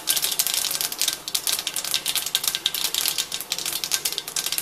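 Mustard seeds spluttering in hot oil: a dense, continuous crackle of rapid pops, the sign that the oil is hot enough for the tempering.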